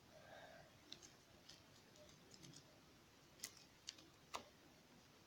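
Near silence with a few faint sticky clicks, three of them about half a second apart in the second half, as glue-and-borax slime is picked off the fingers.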